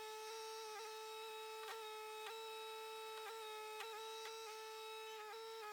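Steady whine of a small motor at one constant pitch, with faint irregular ticks.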